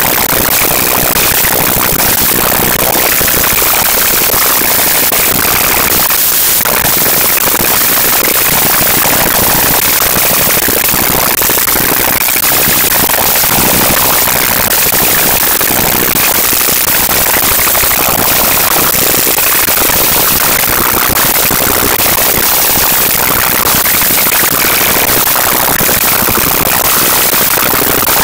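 Fast-forwarded sound left under a sped-up clip: a loud, harsh, unbroken noise full of rapid crackling, with no recognisable voices or single sounds.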